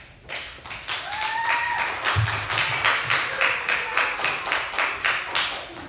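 Applause from a small audience, individual hand claps distinct, with one short cheer from a single voice about a second and a half in.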